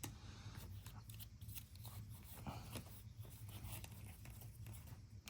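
Faint rustling and soft clicks of trading cards being handled and slid through the hands, over a low steady hum.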